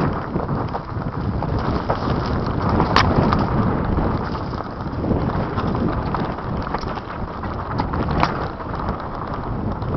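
Wind buffeting the microphone over the rumble and rattle of a mountain bike riding fast down a rough dirt trail, with sharp knocks about three seconds in and again near eight seconds.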